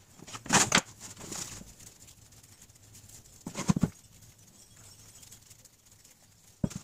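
A knife cutting through a ball of bread dough onto a plastic cutting board, then the dough halves being handled, rolled and set down: a few short thumps and slaps, the loudest about half a second in and again near the four-second mark, with soft rustling between.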